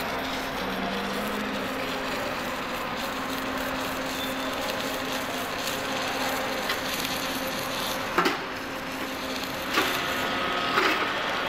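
Submerged arc welding tractor running on a steel plate seam: a steady crackling hiss under the flux with a low hum, broken by a few sharp knocks near the end.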